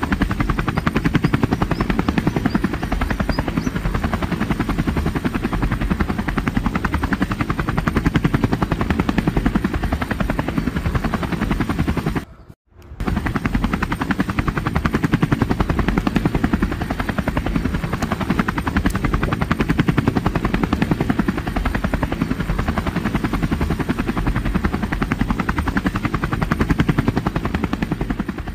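Helicopter rotor chopping, a loud, fast, steady beat that cuts out for about half a second near the middle and then comes back unchanged.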